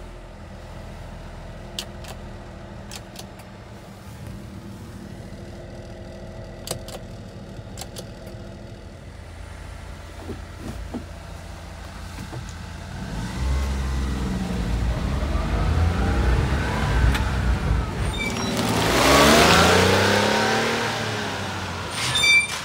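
Daihatsu Hijet S110P kei truck's small three-cylinder engine idling steadily with a few faint clicks. About halfway through it pulls away, the engine note rising in pitch several times as it accelerates. It is loudest a few seconds before the end, then fades.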